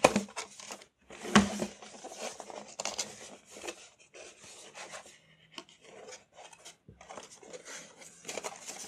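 Cardboard packaging being handled: box flaps pulled open and a paperboard tray sliding out of its sleeve, with irregular scraping and rubbing and sharp clicks, the loudest about a second and a half in.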